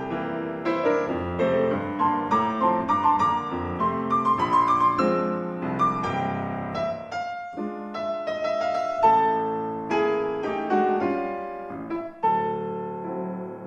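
Solo grand piano playing a tango, quick dense passages with accented chords, one struck hard about nine seconds in; the playing breaks off briefly near the end and resumes with a sustained chord.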